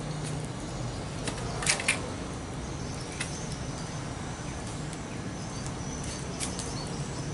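Coconut-shell fire burning with a steady hiss and scattered small crackles, with two sharper clicks close together just under two seconds in.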